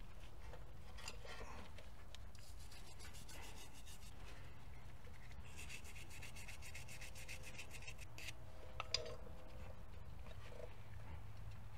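Faint scratching of a small wire brush scrubbing rust and grime off the rear brake hose fitting, in quick back-and-forth strokes.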